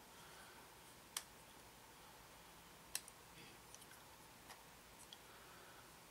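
Small plastic model-kit engine parts clicking as they are handled and pressed together. There is one sharp click about a second in, a louder one about three seconds in, then several fainter ticks, all over near silence.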